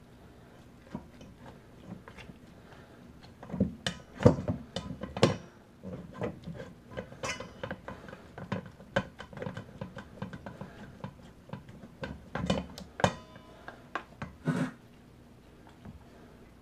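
Wooden spoon pressing and scraping roasted chicken bones in a colander set in a stainless steel bowl: irregular knocks and clatters, loudest in clusters about four and twelve seconds in, a few ringing briefly.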